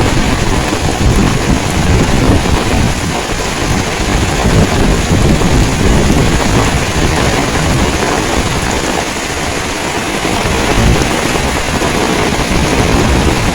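Heavy rain pouring steadily, with strong wind buffeting the microphone in a low rumble that swells and eases.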